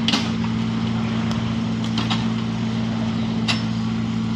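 Case 580N backhoe loader's diesel engine running steadily at a constant speed, with a few light clicks over it.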